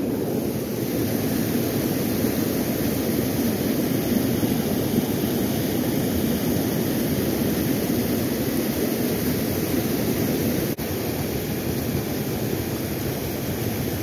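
Steady rush of white water pouring over a low concrete weir in a river running high and fast.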